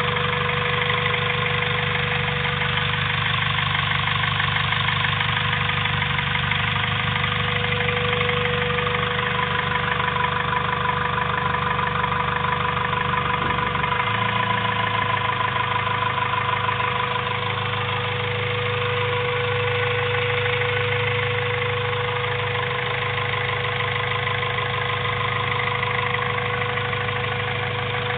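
Turbocharged Honda B16A2 1.6-litre four-cylinder engine running at idle, with a steady high tone over the engine note; this is the strange noise that the freshly rebuilt engine is making. The low engine note shifts about halfway through.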